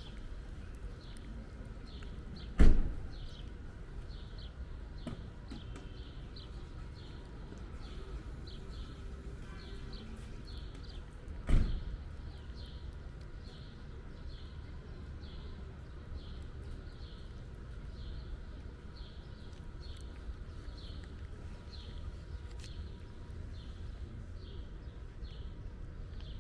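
A cat eating wet food, with a steady, rapidly repeated high chirping in the background. Two sharp thumps, about 3 s and 12 s in, are the loudest sounds.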